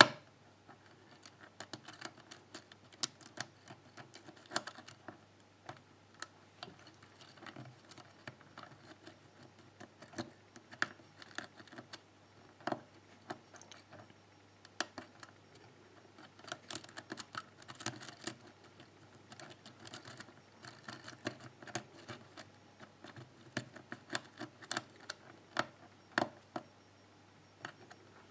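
Steel lock pick working the pins inside a pin-tumbler lock cylinder under a tension wrench: a steady, irregular run of small metallic clicks and light scrapes, with occasional sharper clicks. The picker suspects serrated pins binding hard.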